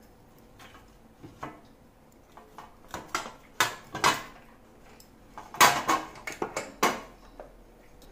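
Metal clinks and knocks as a hand-held stovetop sandwich toaster is clamped shut over a sandwich and handled on a steel plate, with the loudest clatter in a quick cluster in the second half.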